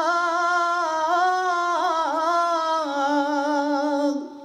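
A man singing a Bengali song unaccompanied, drawing out one long note with ornamented turns in pitch, breaking off near the end.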